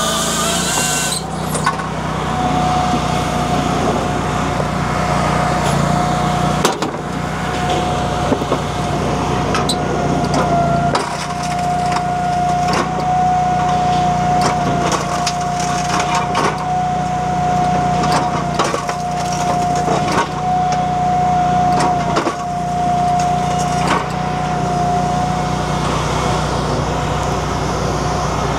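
A firewood processor with a Honda iGX700 V-twin engine running steadily under load, with a continuous whine over the engine hum. Split firewood knocks and clatters as pieces tumble off the conveyor into a metal hopper.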